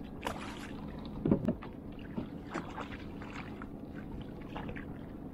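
Water lapping and slapping against a kayak hull, with a steady low wind rumble on the microphone and one louder thump about a second in.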